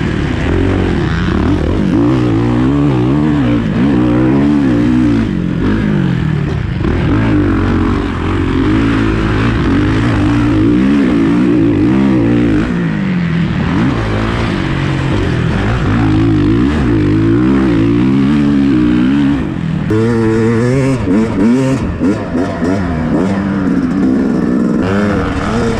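Motocross dirt bike engine being ridden hard, revving up and down over and over, its pitch rising and falling with the throttle and gear changes.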